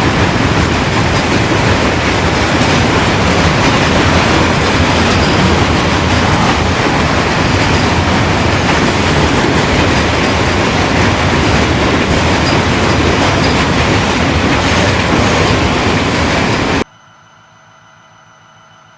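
Freight train cars rolling past close by, a loud steady noise of wheels on rail. It cuts off suddenly near the end, leaving only a faint steady background.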